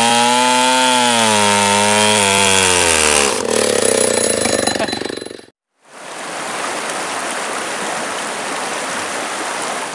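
Stihl chainsaw running under load as it rips along a log into planks, its engine note wavering and then dropping about three seconds in, followed by a rougher sound that cuts off suddenly. After a brief silence, a shallow river rushes steadily over rocks.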